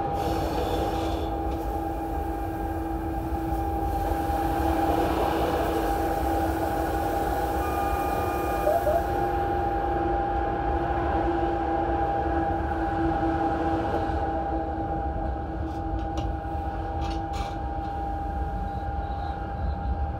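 Electric train running along the track, heard from on board: a steady low rumble with a steady two-tone whine. A short beep sounds about eight seconds in, and a few sharp clicks come in the last few seconds.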